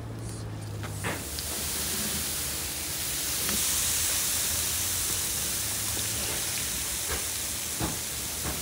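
Hot fat and meat juices sizzling with a steady hiss as a tiered iron rack of coiled sausages in pans is lifted out of a pit tandoor. The hiss starts about a second in, and a few metal clinks come through it.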